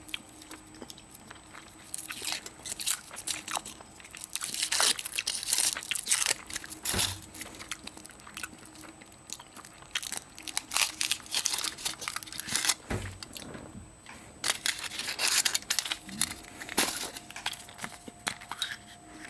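A Kinder Surprise egg being opened by hand: the foil wrapper crinkles and tears, with crunching of the chocolate shell and irregular handling noises.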